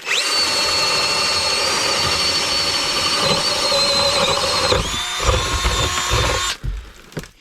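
Power drill with a 1-inch bit spinning up and boring a hole, a steady motor whine for several seconds; about five seconds in the note drops and the drill labours unevenly under load, then stops a little before the end.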